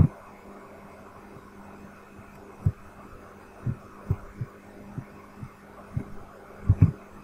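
Dull, low thuds of computer mouse clicks and keyboard presses picked up through the desk, coming irregularly about ten times with a close pair near the end, over a steady low electrical hum.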